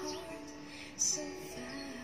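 Background music: a song with a singing voice on long, held notes.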